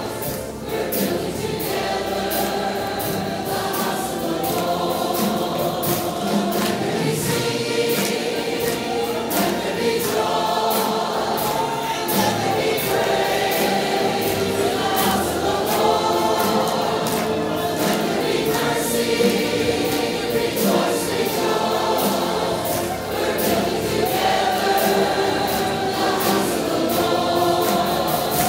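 Gospel choir singing over instrumental backing with a steady beat.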